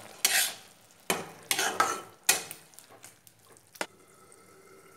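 A spatula stirring a simmering curry in a kadai, with four or five short scraping strokes against the pan, then a single sharp clink about four seconds in as a glass lid goes on the pan.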